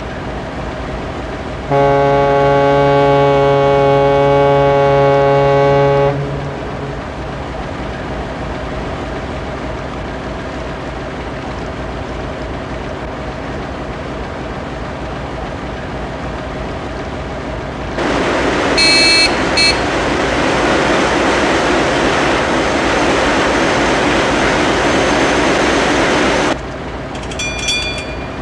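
A ship's horn sounds one long blast of about four seconds over the steady hum of the vessel's engine. Later a loud rushing hiss runs for about eight seconds, and near the end the bell of the engine-order telegraph rings as the handle is moved.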